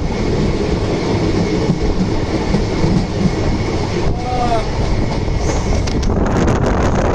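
Rumble and rail clatter of passenger coaches passing close alongside on the adjacent track, heard from the open door of a moving train. About six seconds in the rush thins and gives way to wind buffeting the microphone.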